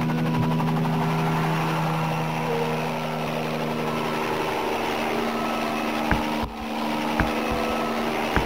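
Helicopter running: a steady engine and rotor noise with a low hum. Several dull thumps come between about six and eight seconds in.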